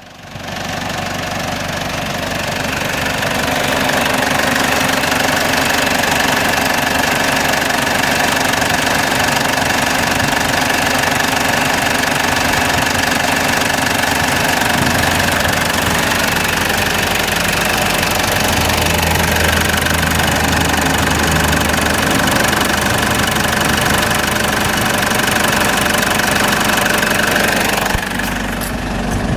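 2009 Mazda BT-50's 2.5-litre turbo-diesel engine idling steadily, heard close over the open engine bay.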